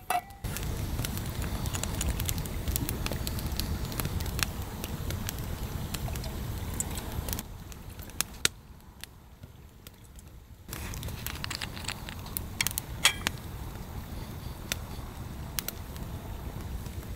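Wood fire burning with a steady rush and scattered crackles and pops, dropping quieter for about three seconds midway.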